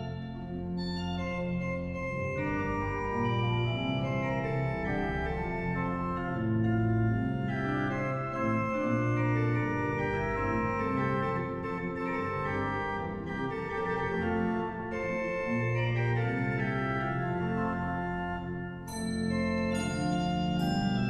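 Pipe organ playing the closing postlude: held chords and moving notes, with a brief drop in level about three-quarters of the way through before it picks up again.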